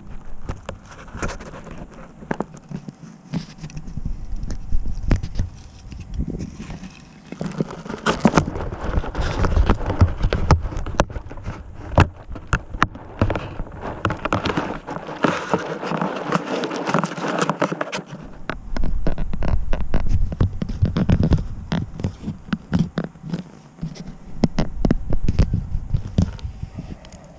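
Handling noise from fingers gripping, rubbing and tapping a GoPro Session camera body right over its microphone: many irregular clicks and a scraping rustle, heaviest in the middle.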